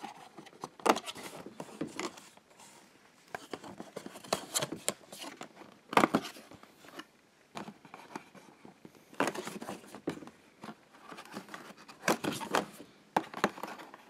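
Thin cardboard doors of an escape-room advent calendar being flipped open and handled by hand. The sounds are irregular taps, scrapes and rustles of card, with a few sharper clicks about a second in and again near the middle.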